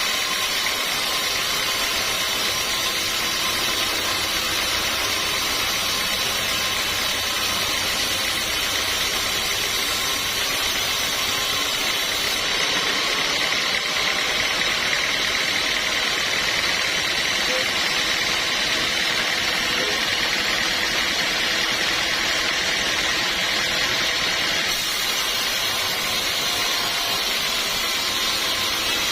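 Sawmill machinery running steadily: a continuous mechanical whirr and hiss with a faint steady whine, without pauses.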